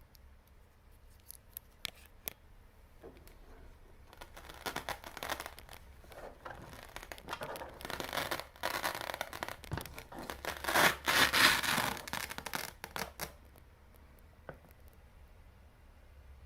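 Close-up hands-on handling noise: a few light clicks, then several seconds of irregular scraping and rustling that grows loudest about eleven seconds in and stops near the end.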